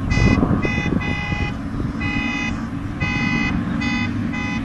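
An alarm-like pitched tone beeping in uneven short and longer pulses, over a steady low rumble.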